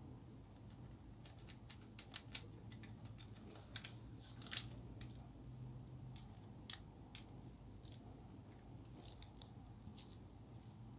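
Faint, scattered small clicks and taps of a laser printer fuser assembly and its plastic end pieces being handled in gloved hands, the sharpest about halfway through, over a low steady hum.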